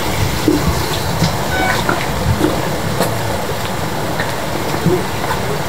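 Steady rumbling outdoor background noise, with a few faint clicks scattered through it.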